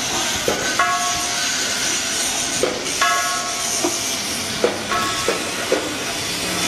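Steel wire rope knocking and scraping against a winch drum's steel flange as it is threaded through by hand: scattered sharp knocks and three short squeaks, over a steady hiss.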